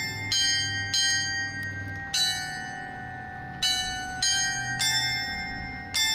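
Church tower carillon playing its hourly melody: about seven single bell notes struck slowly, one every half-second to second and a half, each ringing on into the next.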